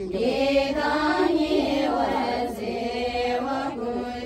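A group of voices chanting a Buddhist prayer together in a melodic, sung recitation.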